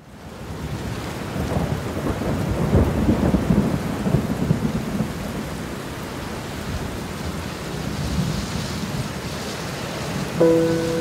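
Heavy rain and rushing floodwater: a steady, noisy rush with a deep rumble, strongest a couple of seconds in. Near the end a few held musical notes come in over it.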